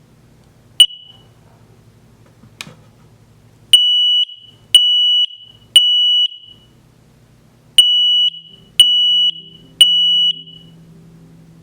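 X-Sense SC07-W combination smoke and carbon monoxide alarm running its self-test after the test button is pressed: a short chirp and a click, then two sets of three loud, high-pitched beeps, each about half a second long and one a second, with a pause of about two seconds between the sets. This is the three-beep smoke alarm pattern, here signalling a successful test.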